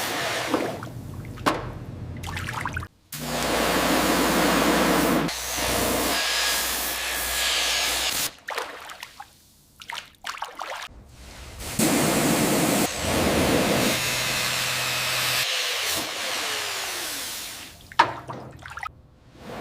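Steady hissing spray noise in a run of short clips cut together, with brief drops to quiet about 3 seconds in, around 9 to 10 seconds in, and near the end.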